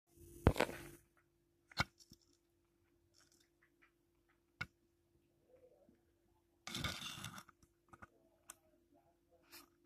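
A few sharp clicks and knocks, the loudest about half a second in, with a short scraping rasp about seven seconds in, over a faint steady hum.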